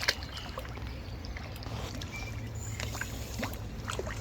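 Water sloshing and lapping from a hooked carp being played close in, with a sharp click about a tenth of a second in and a few small ticks later, over a steady low rumble.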